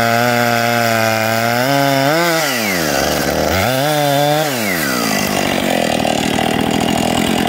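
Husqvarna two-stroke chainsaw running at high revs while cutting into the trunk of a big felled pine. The revs sag and pick up twice, then drop back to idle about five seconds in.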